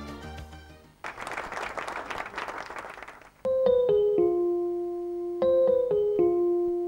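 Music fading out, then a hissing, shimmering noise of about two seconds, then a short electric-piano jingle: a phrase of a few held notes that starts over about two seconds later, as a company logo sting.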